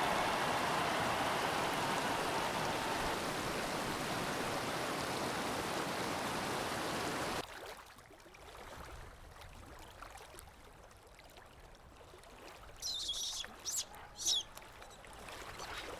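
Steady rush of waterfall water that cuts off abruptly about halfway through, leaving a quiet background where a bird chirps several times near the end.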